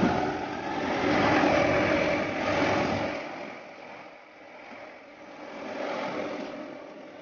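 Metal lathe running while cutting a square thread on a metal bar. It is louder for about the first three seconds, then quieter.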